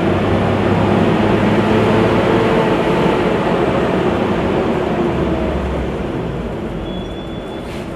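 Mercedes-Benz O-500U city bus diesel engine running, its note easing off and growing quieter over the second half. A brief high tone and a click come near the end.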